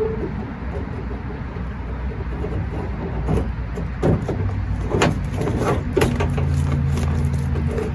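Door latch assembly and its rods being worked out of a 1996 Ford F-150's steel door shell: a few sharp metal knocks and clunks in the second half, over a steady low rumble. A steady low hum comes in about halfway through.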